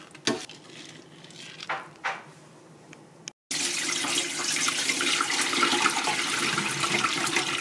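Soybeans being rinsed in a stainless steel bowl: a few small splashes as a strainer skims the floating beans, then, after a brief break, tap water runs steadily into the bowl of beans in the sink, filling it for soaking.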